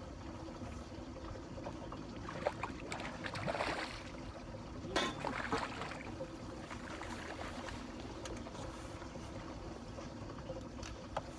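Fishing boat on the water: a steady low hum with water noise, broken by a few short louder noises, one group about a quarter of the way in and another about halfway through.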